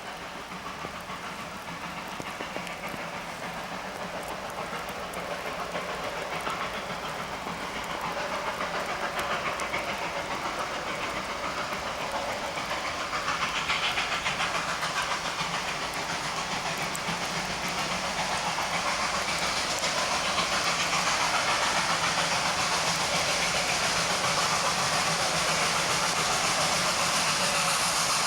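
Victorian Railways NA class 2-6-2 tank steam locomotive 14A working a narrow-gauge train, growing steadily louder as it draws near.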